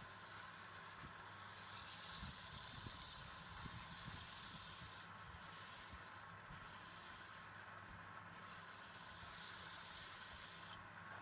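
Wood fire burning with a steady faint hiss and small irregular crackles.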